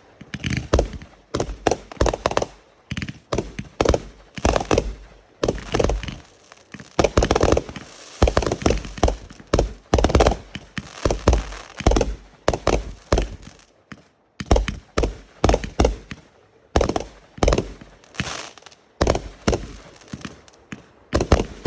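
Fireworks going off in rapid succession: a continuous run of sharp bangs and booms, often several a second, with a brief lull about two-thirds of the way through.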